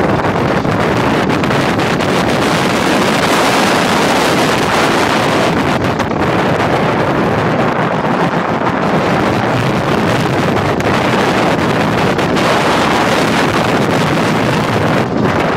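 Heavy wind buffeting the microphone of a rider's camera on a moving suspended roller coaster, mixed with the steady running noise of the train.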